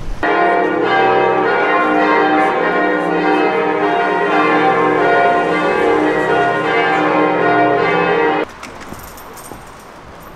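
Church bells of Frankfurt Cathedral pealing, several bells ringing together in a dense, overlapping clang. The ringing cuts off abruptly about eight and a half seconds in, leaving faint street noise.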